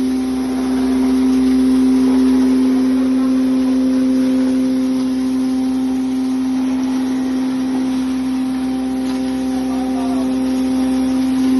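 Spice grinder machine running, with a steady, even motor hum that holds one strong tone throughout.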